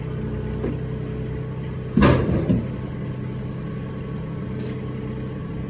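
Diesel engine of a piece of heavy equipment running steadily, with one loud clunk about two seconds in.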